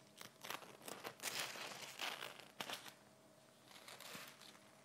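Faint crinkling and rustling of the thin protective paper sheet as it is peeled off a new laptop's screen. A run of irregular rustles fills the first three seconds, with a shorter rustle near the end.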